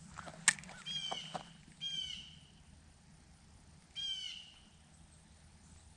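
A bird calls three times, short pitched calls about a second, two seconds and four seconds in, after a sharp click about half a second in.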